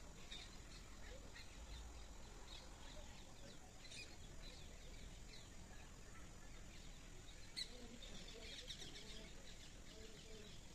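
Faint outdoor ambience with scattered small bird chirps and calls, a brief flurry of chirping near the end. Two sharp clicks, the louder one about seven and a half seconds in.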